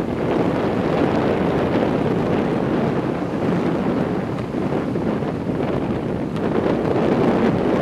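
Strong wind buffeting the microphone in a steady, loud rumble, over the wash of breaking surf.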